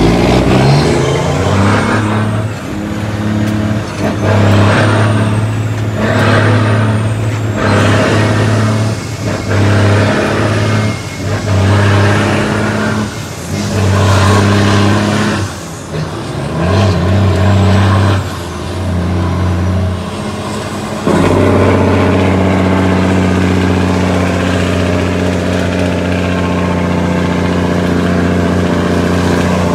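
Cummins ISX diesel in an International ProStar truck pulling away and working up through a run of quick upshifts on its 18-speed transmission, the engine note breaking off and dropping at each shift, with a high whistle that rises and falls with each gear. From about 21 seconds in it settles into a steady cruise.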